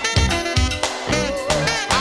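Old-school R&B and soul dance music from a DJ mix, with a steady beat and a melody line that bends in pitch in the second half.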